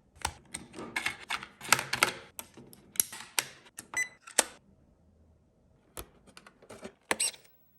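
Rapid plastic clicks and rattles of a small 1/18 RC model truck being handled to switch it on, with a short high-pitched tone about four seconds in. After a pause of a second or so, a few more separate clicks follow.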